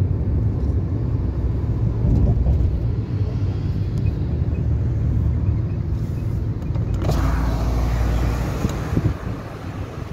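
Steady low road rumble of a car driving, heard from inside the cabin. About seven seconds in, a brighter hiss of wind and tyre noise suddenly rises while the deep rumble falls.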